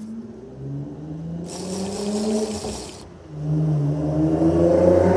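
A passing vehicle's engine accelerating, its pitch rising in two pulls; the second pull is the louder.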